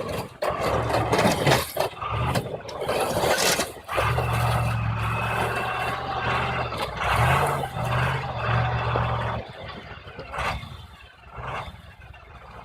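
A heavy vehicle's engine running, with a steady low hum that shifts in pitch partway through, amid noisy clattering and several sharp knocks.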